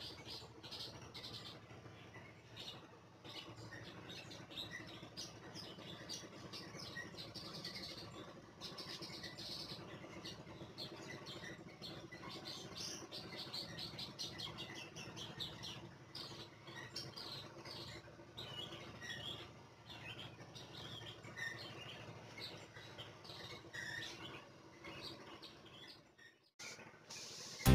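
Small birds chirping, a scatter of short high calls over a faint, steady low hum.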